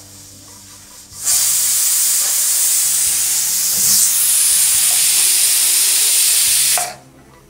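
Aluminium pressure cooker whistling: steam blasts out past the weight valve as a loud hiss, starting about a second in and cutting off suddenly some five and a half seconds later. It is the first whistle, showing the cooker has reached pressure and the cue to turn the flame down low.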